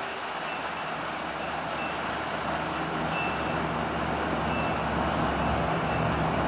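Granite Rock Company #10, a small 0-6-0 tank steam locomotive, drifting in with its train: a steady rumble and hiss that grows louder as it approaches.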